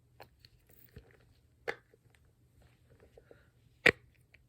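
Silicone mini pop-it fidget toy having its bubbles pressed, giving a handful of scattered soft pops and clicks, the loudest one near the end.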